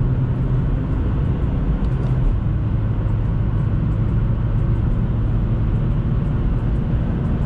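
Steady in-cabin drone of a 2013 BMW 116i at high autobahn speed, around 160 km/h in fifth gear. The low engine note runs under a constant hiss of tyre and wind noise.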